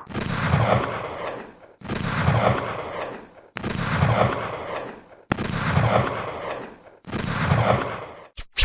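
Booming gunshot sound effect: the same blast repeated five times, about every second and three-quarters, each starting sharply and dying away. A quick stutter of short bursts comes right at the end.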